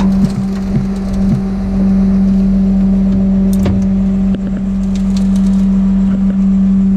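A vehicle engine running steadily with a constant hum, and a few light clanks of tools being put away in a metal truck toolbox in the first half and again near the middle.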